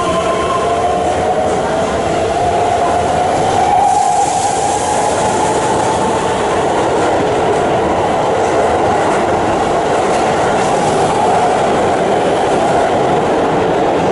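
Keihan electric train pulling out of the underground platform: its motor whine rises in pitch over the first few seconds and then holds, over a steady rumble of wheels on the rails.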